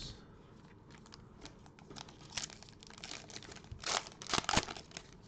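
Foil wrapper of a Panini Prizm basketball card pack crinkling and tearing as it is ripped open by hand, with the loudest rustles about two and a half seconds in and again around four seconds in.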